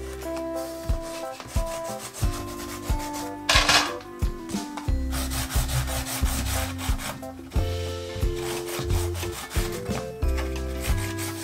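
Chalk scraping and rubbing in strokes across cardboard, loudest about three and a half seconds in, over background music with held notes and a bass line.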